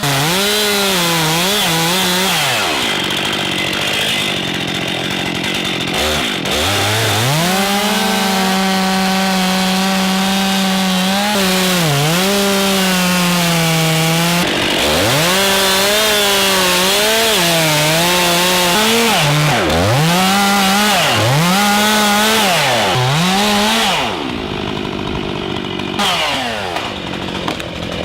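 Chainsaw cutting through an oak trunk, its engine held at full throttle, with the pitch dipping sharply again and again as the chain bogs in the cut. The engine speed falls away about four seconds before the end.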